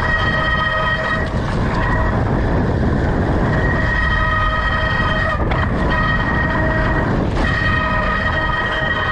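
Brakes squealing with a loud, steady high-pitched tone held under braking, breaking off briefly three times, over a low rumble of wind and rolling noise.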